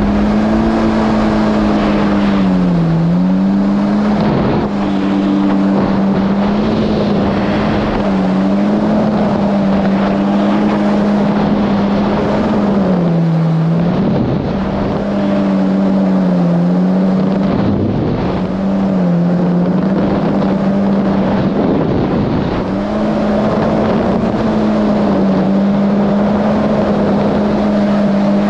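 Supercharged Yamaha GP1800R SVHO jet ski's four-cylinder engine running at a steady high speed under way, its note dipping briefly in pitch about five times, with water and wind rush underneath.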